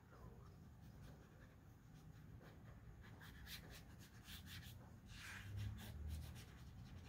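Faint scratching of a Pentel Aquash water brush's bristles stroking and scrubbing across soft watercolour paper in short, irregular strokes, over a low steady hum.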